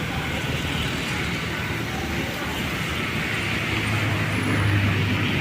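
Road traffic noise with a motor vehicle's engine droning. Its low hum grows louder about three and a half seconds in.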